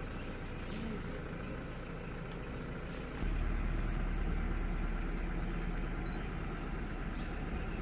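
A safari vehicle's engine idling with a steady low rumble that grows noticeably louder about three seconds in.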